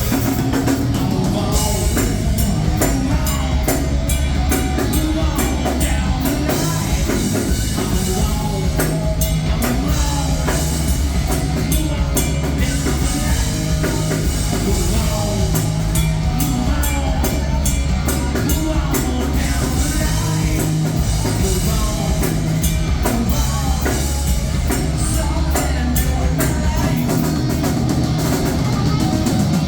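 Live rock band playing at full volume, drum kit prominent over a steady bass line.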